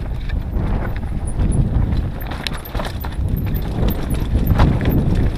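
Mountain bike rattling and clattering down a rough dirt singletrack, heard through a GoPro mounted on the rider, with heavy wind rumble on the microphone. A few sharp knocks from the bike hitting bumps come about halfway through and near the end.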